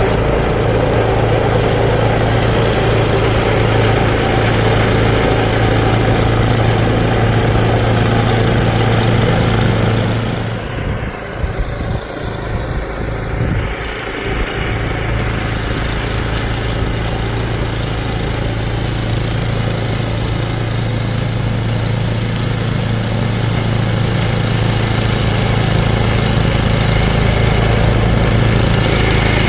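Sears Craftsman snowblower engine running steadily with its auger driving through deep, crusty, icy snow on a newly fitted belt that is slipping slightly for lack of tension. The sound drops and breaks up for a few seconds about ten seconds in, then runs on steadily.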